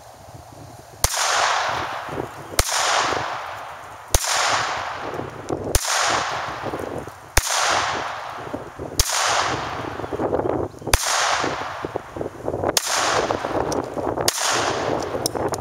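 Taurus PT-22 .22 pistol firing nine single shots at a steady pace, about one every one and a half to two seconds, each shot followed by a long echo that dies away.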